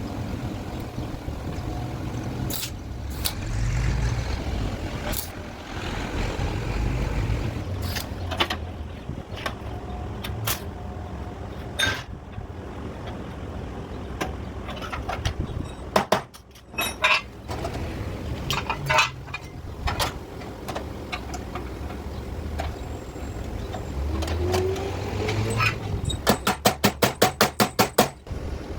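Sharp metal clinks and knocks over a low engine rumble, ending in a quick even run of about a dozen strikes.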